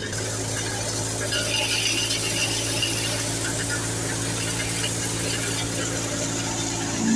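Wheat thresher running steadily, a constant mechanical rattle over a low hum, with threshed grain pouring from its outlet chute.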